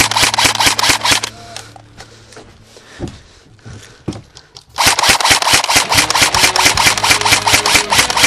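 Airsoft electric gun firing full-auto in rapid, evenly spaced shots over the hum of its motor. A burst stops about a second in, a few single snaps follow, and a second long burst starts about five seconds in.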